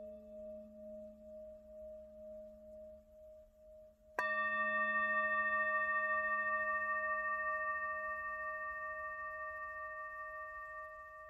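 Hand-hammered Tibetan singing bowl ringing out with a slow wavering pulse as it dies away. About four seconds in it is struck again with a padded mallet and rings clear, with a strong lowest tone and several higher overtones, slowly fading.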